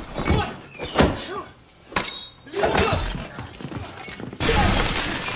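Film fight sound effects: a string of hard blows and thuds with grunts of effort, then, about four seconds in, a sustained crash of breaking glass.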